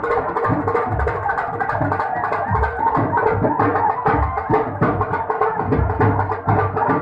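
Loud dance music with a fast, steady drumbeat, played for a dancing crowd.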